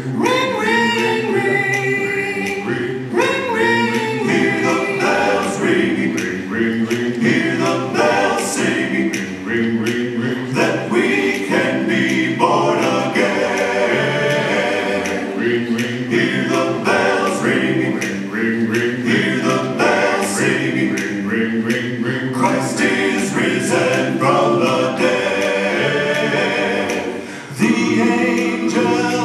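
Several voices singing an Easter gospel song together, with a brief dip about 27 seconds in.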